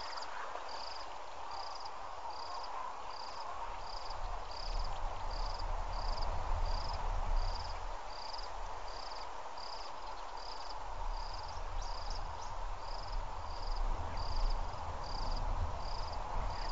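An insect chirping steadily, a short high chirp about every three-quarters of a second, over a steady hiss and a low rumble.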